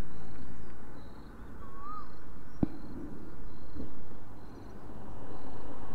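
Outdoor ambience: a low rumble that fades and swells twice, a faint high insect chirring, and one short bird whistle about two seconds in, with a single click a little later.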